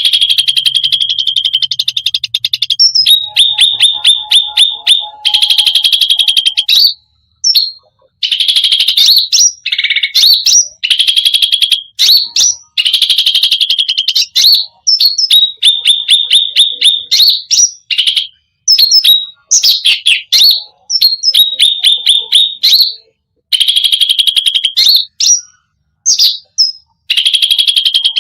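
Cucak rante songbird singing loudly in long, fast chattering rolls of rapidly repeated notes with sharp whistled upslurs, broken by several short pauses.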